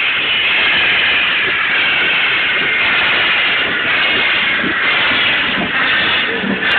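C11 325 steam tank locomotive moving off with its 50-series coaches: a loud, steady rush of steam and running noise, overloaded and distorted on a mobile phone's microphone. A few low knocks come in near the end.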